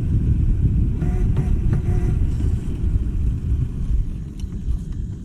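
Scooter on the move: a dense, low rumble of wind and road noise that eases off somewhat near the end.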